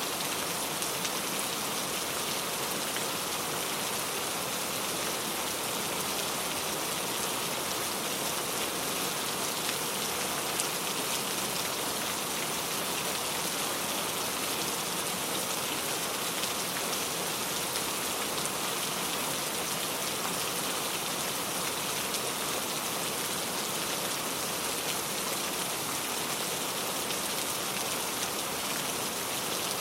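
Heavy rain falling steadily, a dense hiss of drops striking a surface with fine individual drop ticks through it.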